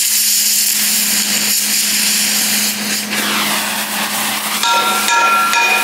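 Cutting torch hissing steadily as it cuts through a steel plate flange. From about four and a half seconds in, a hammer strikes the hot steel several times, each blow ringing.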